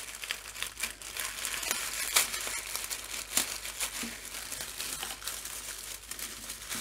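Tissue paper crinkling and rustling as hands pull it open, with a few sharper, louder crackles, about two and three and a half seconds in.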